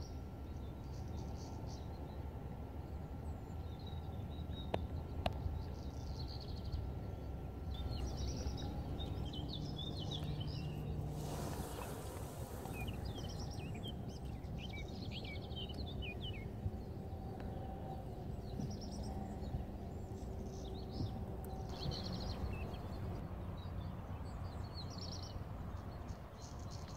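Outdoor lakeside ambience: a steady low rumble of wind-like noise with small birds chirping and twittering on and off. About halfway through there is a brief louder rush of noise.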